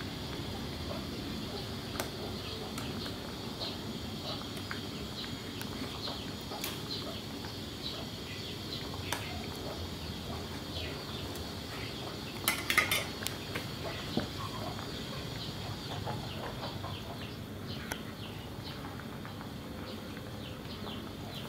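Metal ladle clinking and scraping against a stainless steel pot of boiling fish soup, with a quick run of sharp clinks about halfway through, over the steady bubbling of the boil.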